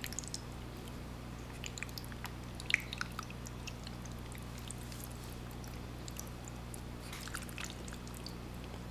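Soft, wet mouth sounds of eating thick Chinese glass noodles and braised chicken: scattered small smacks and clicks, the sharpest about a third of the way in and another cluster near the end, over a steady low electrical hum.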